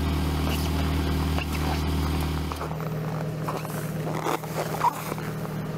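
Car engine idling at the exhaust with a steady low hum; about two and a half seconds in it gives way abruptly to another idling car whose hum sits higher.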